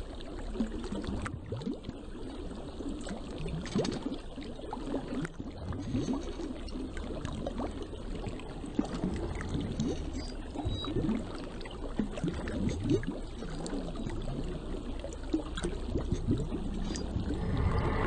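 Flowing water splashing and churning steadily around the submerged paddles of a small prototype water wheel, with many small splashes, a little louder near the end.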